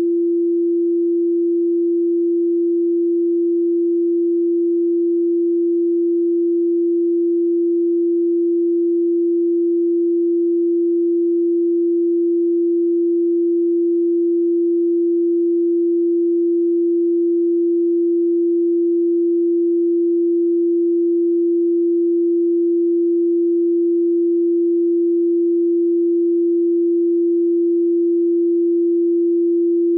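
Pure sine tone from a frequency generator at 341.3 Hz, held steady and unbroken at one pitch.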